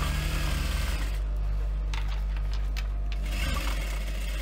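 Global industrial sewing machine stitching a seam through faux leather: a quick run of rapid needle strokes for about the first second, then the motor humming steadily, with another short burst of stitching near the end.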